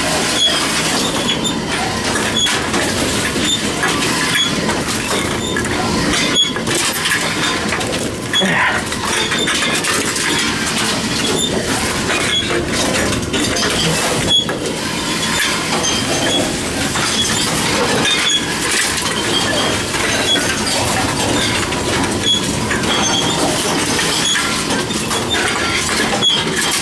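Envipco CF-1500 reverse vending machine running as cans are fed into it: a steady mechanical clatter with frequent sharp knocks and clicks.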